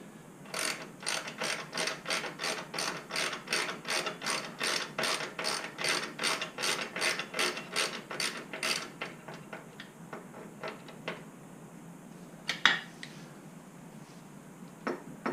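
Hand ratchet wrench clicking as it turns the bolts of a motorcycle backrest support bracket, an even run of about three clicks a second that stops about nine seconds in. A single sharp knock follows a few seconds later.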